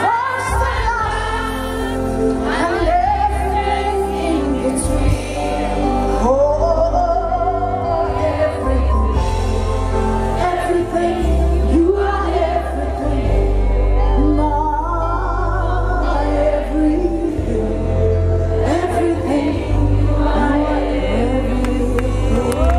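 Live gospel worship music: a band with a heavy bass line and several voices singing a worship song, with the congregation singing along.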